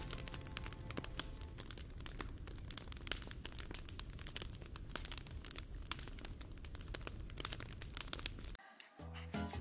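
Wood fire crackling: irregular sharp pops and snaps over a low rumble, cutting off shortly before the end.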